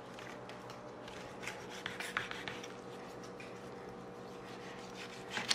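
Fillet knife sawing and scraping through the flesh of a partly frozen jack crevalle, a faint scratchy rubbing with a few light clicks, more of them about two seconds in and a sharper one near the end. The frozen flesh makes the cut slow and hard. A faint steady hum sits underneath.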